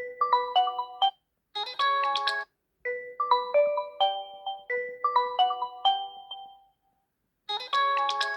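Realme C25s phone ringtone playing: a short tune of quick, separate notes repeats several times with brief pauses between the phrases. About seven and a half seconds in, a fuller, denser passage begins.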